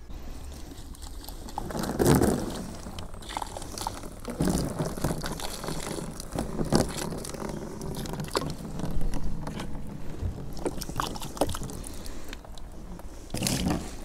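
Hot water poured from a kettle through an open wooden bird box, splashing and trickling out of it into a plastic wheelbarrow below, rinsing the emptied box clean. The pouring comes in several louder swells.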